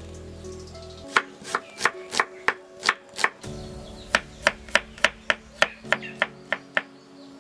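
Kitchen knife chopping shallot and garlic cloves on a wooden cutting board: crisp, even knocks about three a second, starting about a second in.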